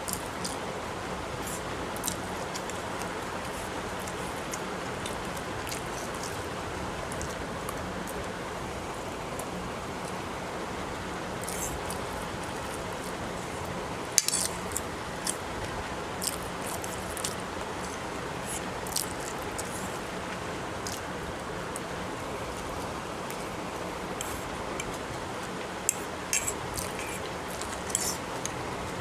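A metal fork clicking and scraping on a plate as noodles are eaten: scattered light clicks, a sharper one about halfway through and a few close together near the end. Under it a steady hiss with a low hum.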